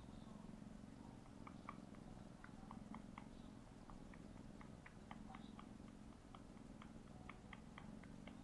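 Tabby kitten purring faintly and steadily while kneading against an adult cat, with soft irregular clicking smacks of its mouth, several a second.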